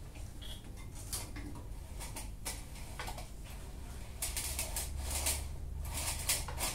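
Lawn mower's primer bulb being pressed again and again: light clicks of handling, then from about four seconds in a run of short puffs and clicks, about three a second.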